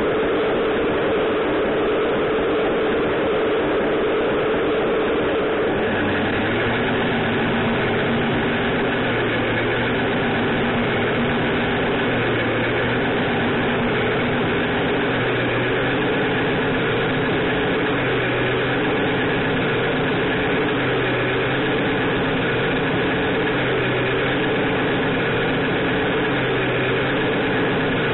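RC semi truck's Beier USM-RC2 sound module playing a simulated diesel truck engine at idle, a steady running sound. From about six seconds in, a low pulse repeats roughly every three seconds.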